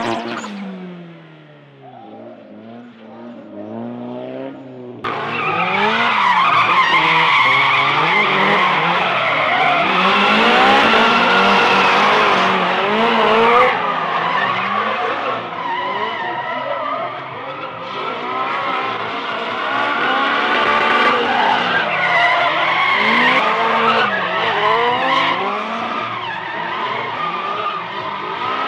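Drift cars sliding: engines revving up and falling back again and again, with tyres squealing and skidding. Quieter for the first few seconds, then much louder from about five seconds in.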